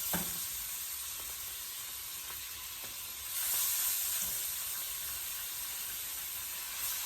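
Seasoned skinless chicken thighs sizzling as they sear in melted butter in a hot skillet. The sizzle swells louder a little over three seconds in.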